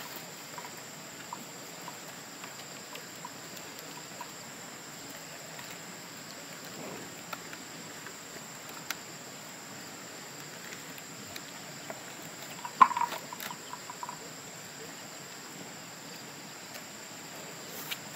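Insects chirring in a steady, high, thin tone, with a few faint taps and a short clatter of wood knocking about 13 seconds in as sticks of firewood are handled and tied into a bundle.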